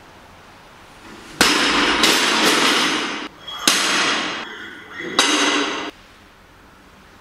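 Loaded barbell dropped from overhead onto the lifting platform: a sudden crash about a second and a half in, a second hit just after, and a rattle of plates and collars. Two more sharp metal clanks with ringing follow over the next few seconds, then it stops.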